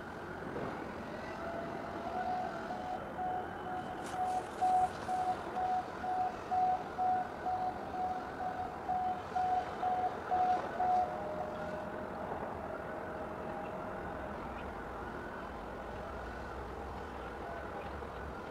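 An electronic warning beeper, like a reversing alarm, sounding one steady tone about twice a second for some nine seconds. Under it runs a steady low rumble.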